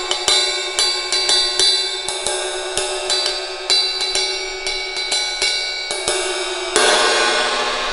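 A vintage 20-inch A Zildjian Constantinople ride cymbal struck repeatedly in a riding pattern, about two or three strokes a second, over its sustained ring. Near the end it is hit harder and left ringing out with a long decay.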